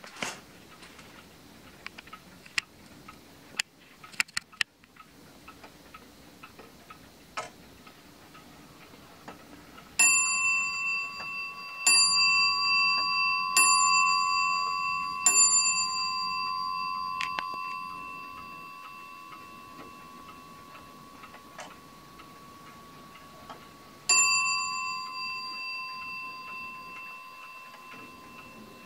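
Holland wall clock with an FHS movement striking its bell four times, about a second and a half apart, each stroke ringing on and slowly dying away; some seconds later it strikes once more. Before the strikes only faint ticking of the movement is heard.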